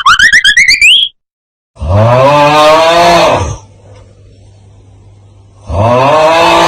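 Meme sound effect: a rising, rapidly pulsing whistle-like glide that cuts off about a second in, then a long, loud, low animal-like call that rises and falls in pitch, played twice with a faint low hum in the gap.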